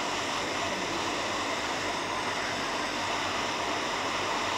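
Steady, even hiss of rushing air with no rhythm or breaks.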